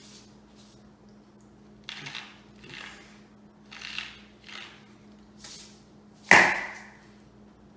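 A few short hissing or shaking noises, then one loud sharp knock about six seconds in, over a faint steady hum.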